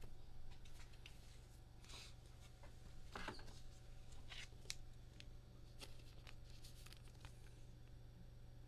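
Faint handling of baseball trading cards: short scratchy swishes and light clicks as cards are slid and flicked through a stack, over a low steady hum.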